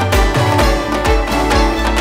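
Background music with a steady beat and a deep bass pulse under sustained melody lines.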